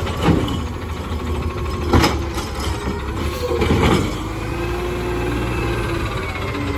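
Natural-gas garbage truck with an automated side-loader arm, engine running as the arm sets an emptied cart down, with sharp clunks at the start, about two seconds in and about four seconds in. From about three and a half seconds the pitch rises and then holds as the truck starts to pull forward.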